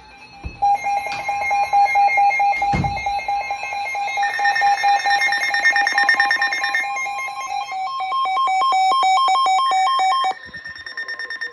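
Emergency Alert System tones breaking into a TV broadcast: loud, rapidly pulsing electronic beeps and warbling data tones. About ten seconds in they drop abruptly to a quieter pulsing tone. Two low thumps come near the start.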